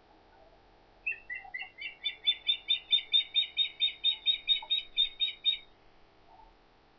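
Osprey calling at its nest: a rapid series of about twenty high, sharp whistled notes, about five a second, starting about a second in and stopping suddenly after some four and a half seconds.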